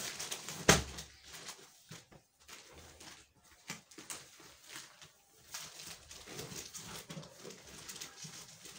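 A sharp knock about a second in, followed by scattered faint clicks and rustling.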